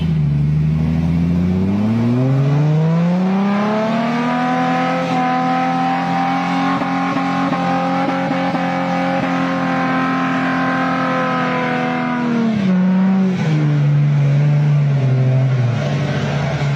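An off-road 4x4's engine revving up over a couple of seconds, held at high revs for about eight seconds, then dropping back to a low idle near the end.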